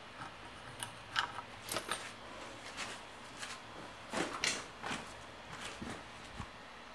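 Scattered light clicks, clinks and rustles of a contact probe's small clip and wire being handled at a CNC router's bit, with a louder cluster a little past the middle.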